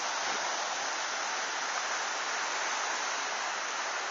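Steady, even hiss of ocean surf washing on a beach.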